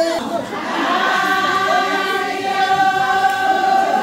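A group of women's voices singing together in unison, holding long notes.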